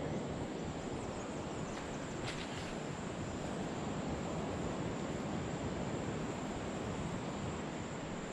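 Steady low rushing outdoor background of wind and surf on an open beach, with a faint steady high hiss above it.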